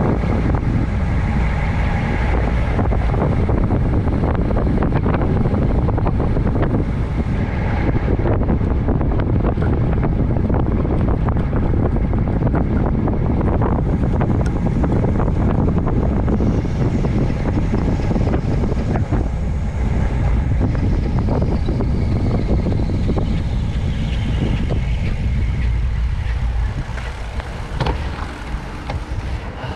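Wind rushing over the microphone with steady vehicle road and engine noise while riding, easing off somewhat near the end.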